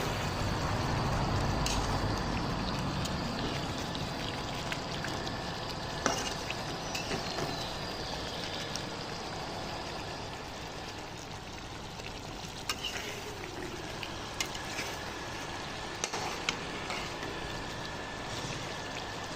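Chicken frying with a steady sizzle, loudest over the first few seconds, with a few sharp clicks here and there.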